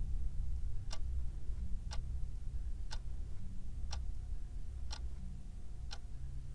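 Clock ticking, one tick a second, over a low steady hum.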